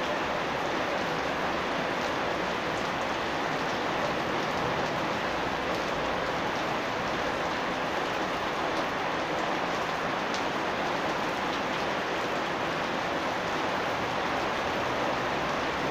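Steady rain falling, an even dense hiss with scattered small drop ticks.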